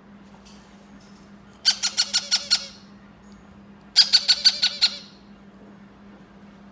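Yellow-crowned amazon chick giving two bursts of rapid, harsh begging calls, each a quick run of about six pulses, the second burst about two seconds after the first.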